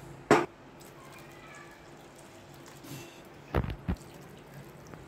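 Hot milk being poured from a steel tumbler into a pan of cooked moong dal and jaggery syrup. Over the faint pouring, a sharp metal knock about a third of a second in, the loudest sound, and two more knocks about three and a half seconds in, as the tumbler is handled.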